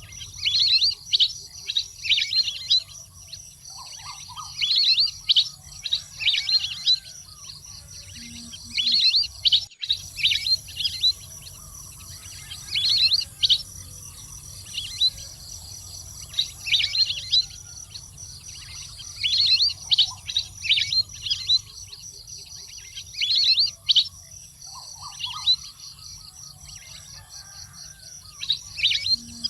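Calls of a waterfowl: bursts of rapid, high-pitched chattering notes, repeated every second or two, over a faint steady high hiss and low hum.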